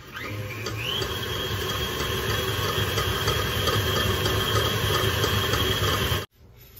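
KitchenAid tilt-head stand mixer motor running. It speeds up with a rising whine over the first second, then holds a steady high whine, and cuts off suddenly about six seconds in.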